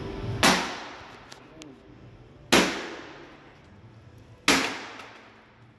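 Three heavy smashing blows about two seconds apart, a long-handled tool swung down onto old electronics. Each is a sharp crack that rings off over about a second.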